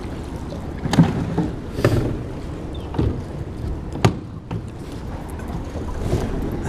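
Bow-mounted electric trolling motor being lifted and stowed on a small boat, its shaft and head knocking against the mount about four times, roughly a second apart, over a steady low rumble.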